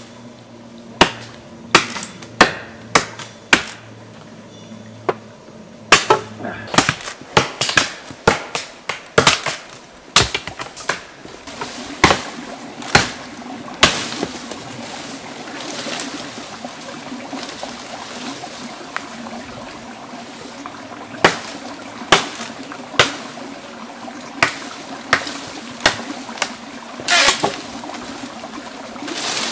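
Silky nata (Japanese billhook) chopping into sapling stems and branches: sharp blade strikes in quick irregular runs, pausing for several seconds midway before the chopping resumes.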